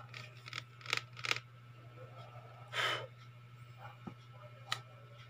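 Handling noise: a few light clicks and taps, and one short, sharp breath close to the microphone about halfway through, over a steady low hum.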